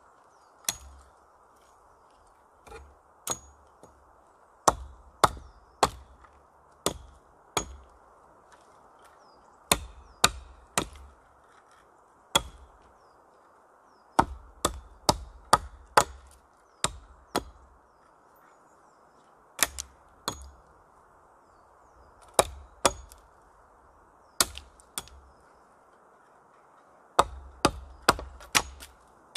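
Small hatchet chopping into a thin upright wooden pole: sharp strikes in quick runs of two to five, with short pauses between the runs, over a steady faint background hiss.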